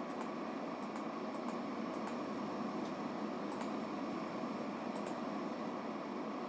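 Desktop PC's cooling fans running with a steady whirr, with a few faint scattered clicks.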